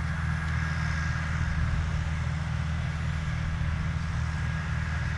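Steady drone of tractor diesel engines working a trailed forage harvester on grass silage, with a faint steady high whine over it.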